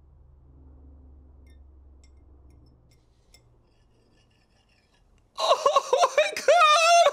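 Quiet room tone with a faint low hum, then, a little over five seconds in, a man suddenly breaks into loud, high, wavering crying.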